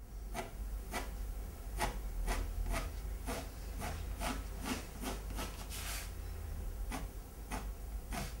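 A fine paintbrush making short scratchy strokes on a stretched canvas, about two or three a second with one longer stroke about six seconds in, over a steady low hum.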